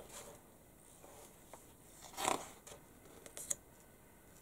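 A magazine page being turned by hand: one short paper swish about two seconds in, then a light tap of paper or hand a second later, over quiet room tone.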